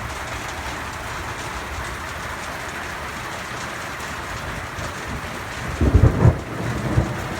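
Night thunderstorm: steady heavy rain, with a loud low crash and rumble of thunder about six seconds in and a smaller one about a second later.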